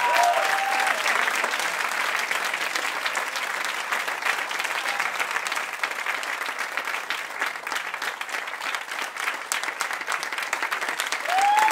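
Audience applauding steadily, with a few voices calling out at the start and again near the end.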